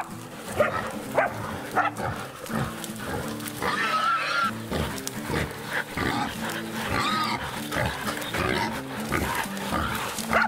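A wild boar squealing and grunting as pig-hunting dogs hold it by the head, with two loud, drawn-out squeals about four and seven seconds in. Background music plays underneath.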